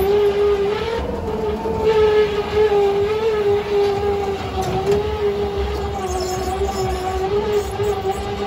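Ghost train car rolling along its track with a low rumble, under one steady droning tone that wavers slightly in pitch.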